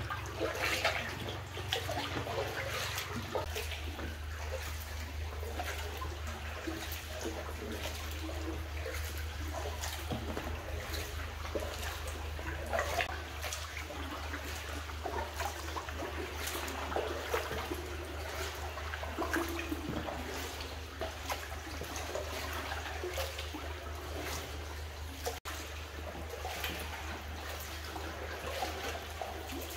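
Canal water splashing and trickling as a paddle dips and pulls through it from an inflatable kayak, in irregular strokes, over a steady low hum.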